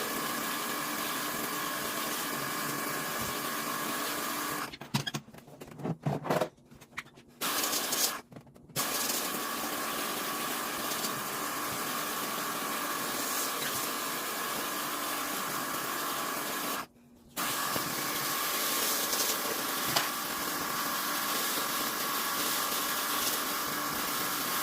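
Pressure-washer spray running steadily while the air conditioner's vent assembly is washed, with a steady hiss and a few steady tones. It stops and starts in short stutters about five seconds in, and cuts out briefly about eight seconds in and again around seventeen seconds in.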